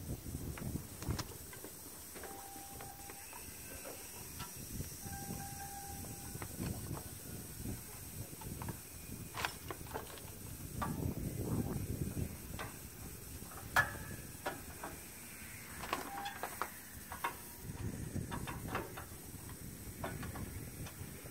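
Scattered metallic clicks and clanks of hand tools and steel brake parts as shoes and return springs are worked into place on a semi-trailer drum brake, with a sharp clank about 14 seconds in and low handling noise between.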